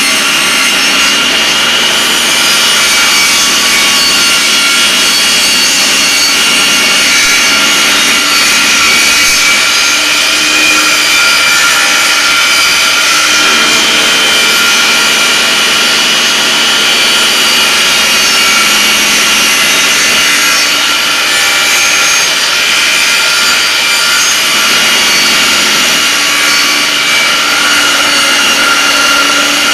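Table saw running and ripping a wooden trim board lengthwise: a loud, steady whine with the noise of the blade cutting wood. The lower tones shift a little a few times as the feed load changes.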